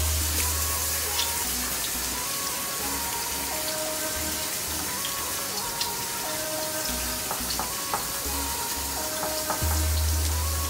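Chicken breast cutlets, dredged in flour and egg wash, frying in hot olive oil in a stainless steel skillet: a steady sizzle with scattered small pops. Background music plays underneath.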